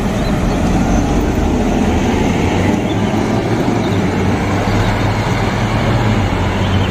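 City bus driving past and pulling away on the road, its engine a steady low drone over tyre and traffic noise.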